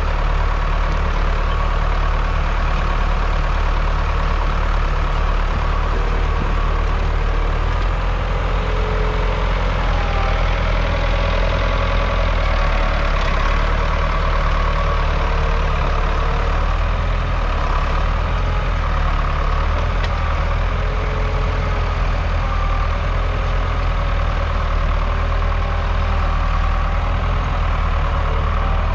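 A 1991 Ford 6410's 4.4-litre four-cylinder diesel engine running steadily under load as the tractor pulls a two-furrow reversible plough through the ground.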